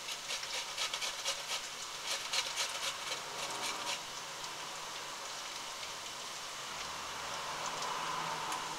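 Raw potato rubbed on the coarse side of a metal box grater: quick rasping strokes for about four seconds, then they stop. A steady sizzle from the greasy frying pan underneath continues throughout.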